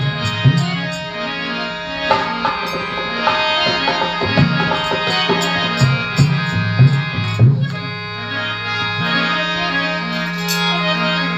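Instrumental interlude of a Rajasthani devotional bhajan: a reed instrument holds a steady drone and plays the melody over repeated hand-drum strikes.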